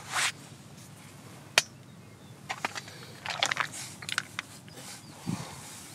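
Particle bait of hemp seed and tiger nuts being stirred in a plastic tub: short clicks and small clusters of rattling as the seeds and nuts shift against each other and the tub.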